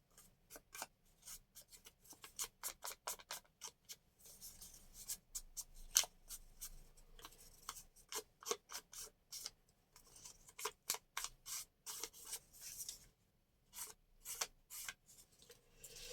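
Scissors cutting paper: a long run of quick, sharp snips at an uneven pace, with a few short stretches of soft paper rustling between them.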